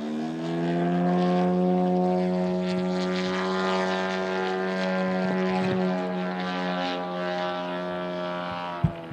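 A radio-controlled aerobatic model airplane's engine and propeller open up, the pitch rising at the start. The engine then runs steadily at high power as the plane climbs vertically. A sharp click comes near the end, after which the sound drops in level.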